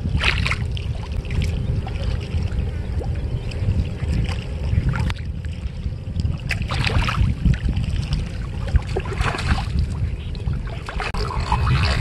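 Wind buffeting the microphone as a steady low rumble, with water sloshing and splashing in short bursts around someone wading in shallow lake water. The splashing picks up near the end as a hooked fish thrashes at the surface.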